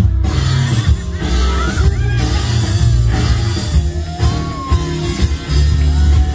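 Loud music with a strong bass line and a voice singing over it.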